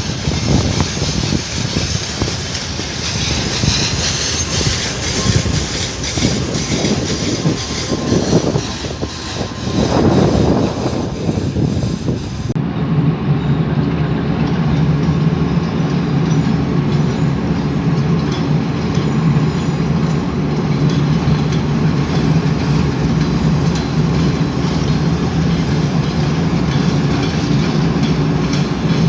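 Passenger train running on the rails: wheels clattering over rail joints with a broad rushing noise. About twelve seconds in, the sound changes abruptly to a steady low hum.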